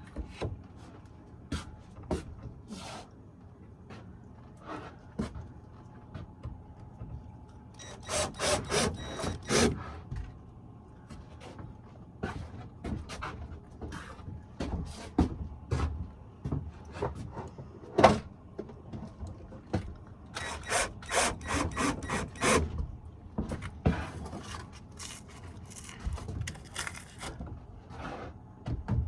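Thin wooden ceiling boards being handled and worked by hand: scattered knocks and taps. There are two spells of quick repeated strokes, about eight seconds in and again around twenty seconds in.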